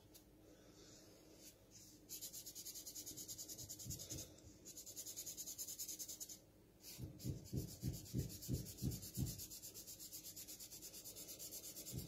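A colouring pen scribbling back and forth on folded kitchen paper towel, colouring in a shape. The strokes are quick and even, starting about two seconds in with a short pause near the middle. In the second half, deeper knocks come about three times a second along with the strokes.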